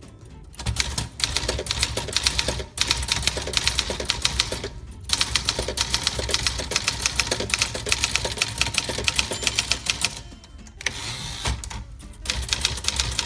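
Keys of a 1950 Remington All New Personal manual portable typewriter striking the platen in quick runs of typing. There are short pauses about a third of the way in, about halfway, and a longer, quieter pause near the end.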